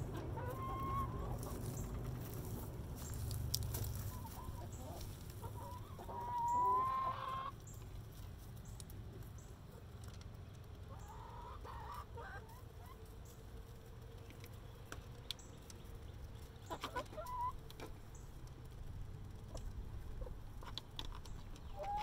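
Hens clucking with short calls and a longer rising call about six to seven seconds in, the loudest sound, over scattered light clicks as they peck at feed in a hanging tube feeder.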